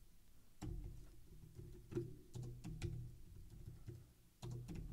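Computer keyboard keys clicking: scattered, irregular single keystrokes, faint, as short text is typed in.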